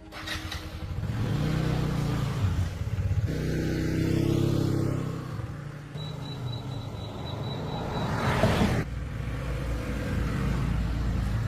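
A car engine running with a low rumble that swells and eases, as if the car is being driven. A rapid, high-pitched beeping sounds for about two seconds midway.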